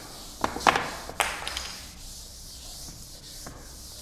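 Chalkboard being wiped with an eraser: a few sharp, loud strokes and knocks against the board in the first second and a half, one with a short ring, then quieter steady rubbing.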